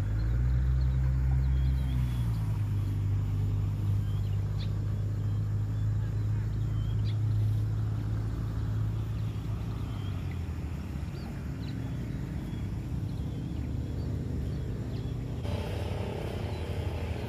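Low, steady hum of a motor engine running at a distance; its pitch drops about two seconds in, and it fades after about ten seconds. A brighter hiss comes in near the end.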